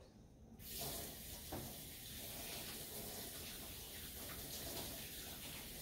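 Kitchen tap turned on about half a second in and running steadily into the sink as hands are washed under it.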